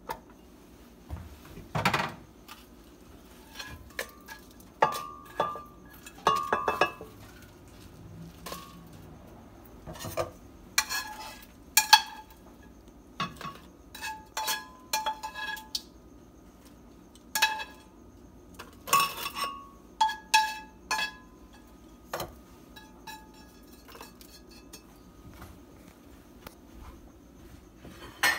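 Metal tongs clinking and knocking against a glass blender jar and a skillet as toasted chiles and roasted vegetables are moved into the jar. Irregular clinks, several with a short ringing tone.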